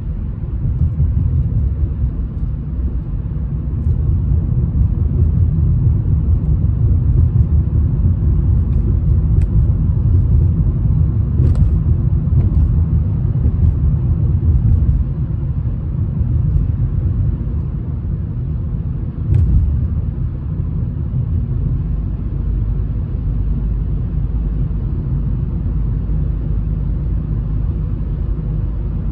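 Steady low road and engine rumble heard inside a moving car's cabin at highway speed, with a few faint clicks.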